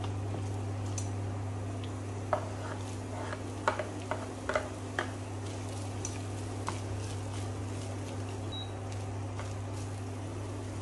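A plastic ladle stirring and scraping lemongrass, ginger and garlic around a dry stainless steel pot, with a cluster of sharp clicks and taps against the metal in the first half and a few lighter ones later. A steady low hum runs underneath.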